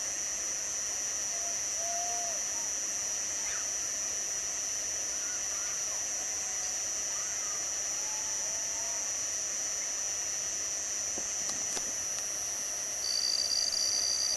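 A steady high-pitched drone of several close tones, with faint short chirps or calls at times and a second high tone joining near the end, along with a few faint pops.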